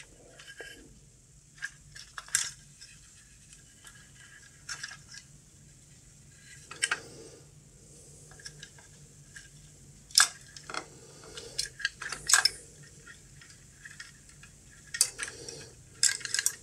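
Scattered light clicks and small metallic clinks, irregular and a second or more apart, as an opened radiometer and its wiring are handled and poked at. A faint steady low hum lies underneath.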